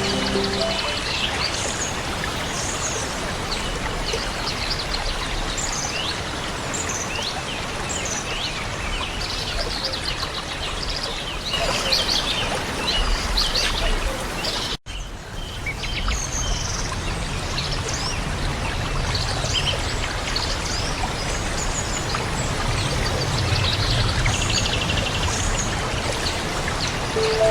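Many small birds chirping over a steady rush of running water. The sound cuts out for an instant about halfway through.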